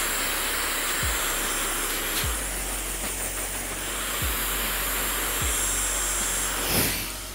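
Hand-held hair dryer blowing steadily at close range, with a thin high whine in its rush of air, stopping suddenly near the end. A background music beat thumps about once a second underneath.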